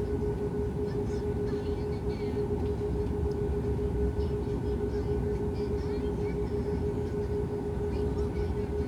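Airliner cabin noise with the engines running: a steady low rumble under an unbroken humming tone.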